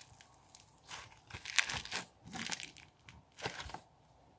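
Crinkling and rustling of something being handled, in about four short bursts.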